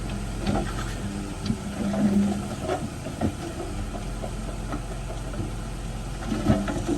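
Heavy diesel earthmoving machinery running steadily, with scattered clanks and knocks.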